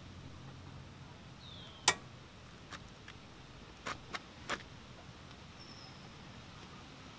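Scattered metallic clicks and taps of hand tools on the rear brake caliper carrier and its long mounting bolt while the stubborn bolt is worked loose, the loudest knock about two seconds in. A faint bird chirp sounds just before it.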